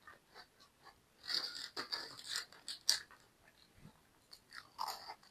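Biting and chewing crisp pastry: a dense run of crackly crunches about a second in, then scattered smaller crunches.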